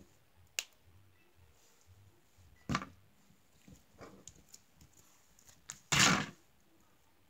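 Slime being squeezed and kneaded by hand, making several short squishy sounds, the loudest and longest about six seconds in.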